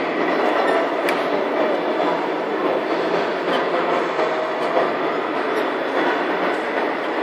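Steady, dense din of a busy indoor hall, with one sharp click about a second in.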